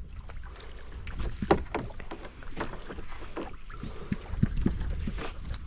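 Small fishing boat on the water: a steady low rumble with scattered knocks and taps against the hull.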